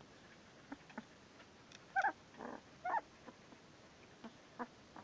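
Very young puppy whimpering: two short, high, squeaky cries, about two seconds in and again a second later, with a breathy sound between them and a few faint squeaks around them.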